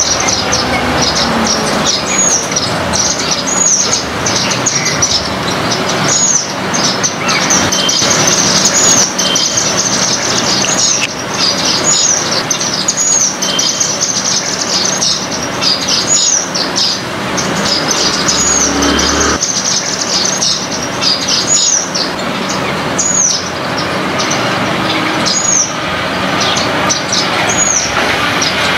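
Small birds chirping continuously, with one high hooked call note repeated about every one and a half seconds, over a steady background rumble like distant traffic.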